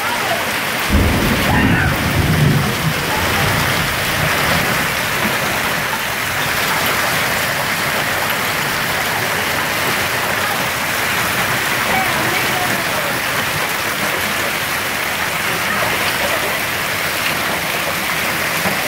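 Hail and heavy rain falling steadily on pavement, grass and parked vehicles, with a brief low rumble about a second in.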